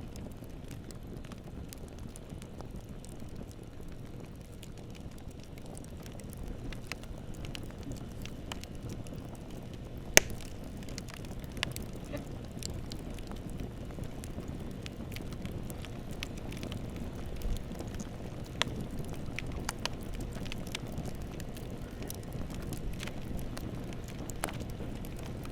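Bonfire burning: a steady low rumble of flames with scattered sharp crackles and pops. The loudest pop comes about ten seconds in.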